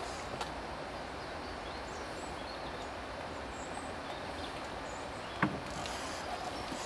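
Steady outdoor noise of a flowing river around a boat, with a few faint high chirps and a single sharp knock about five and a half seconds in.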